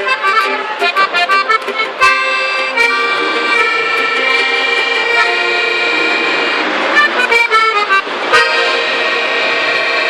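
Accordion playing an instrumental passage of a norteño-style song: quick runs of notes, then long held chords from about two seconds in, with another quick run near the end.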